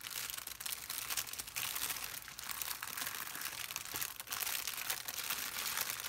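Clear plastic packaging wrap crinkling and crackling continuously as it is handled and pulled open, with many sharp crackles.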